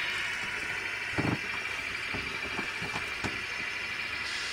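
Model train of covered hopper wagons running on the layout track: a steady hiss of wheels and motor, with a few light clicks from the wagons and one louder knock about a second in.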